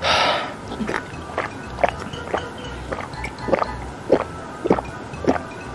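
A person gulping down a glass of milk: a short breathy rush at the start, then about nine swallows in a steady rhythm of roughly two a second.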